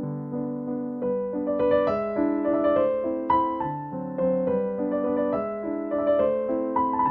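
Background piano music: a gentle melody of clear sustained notes over a repeating accompaniment.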